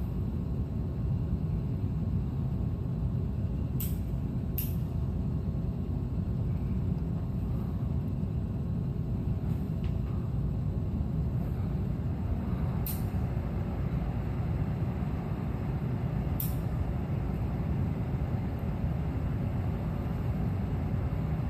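Electric fan blowing steadily, a low rushing noise, with a few short sharp clicks, the kind a lighter's ignition makes, about four seconds in and twice more later.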